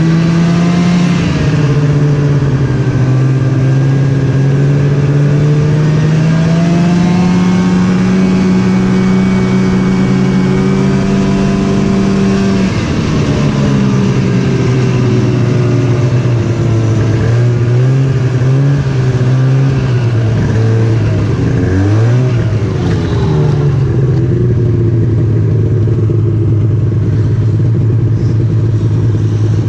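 Snowmobile engine running under way, its pitch rising and falling with the throttle. It climbs through the first dozen seconds, drops sharply, wavers up and down, then holds steadier near the end.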